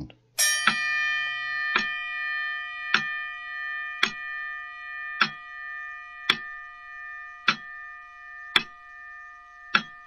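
Quiz countdown timer sound effect: a sharp clock-like tick about once a second over a steady held chord, which starts with a chime about half a second in.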